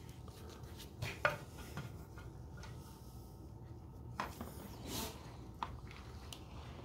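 Hard black tray being lowered into a plastic tub of liquid sealer and pressed under: a few light knocks and clicks of the tray against the tub, with soft rubbing and a brief swish about five seconds in. A low steady hum runs underneath.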